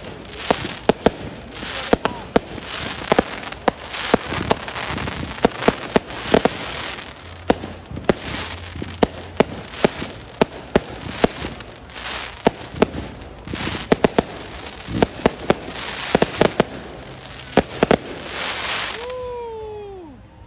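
Aerial fireworks display: a rapid, irregular run of sharp bangs and crackling, the bangs stopping about a second before the end. A single falling whoop follows as the show ends.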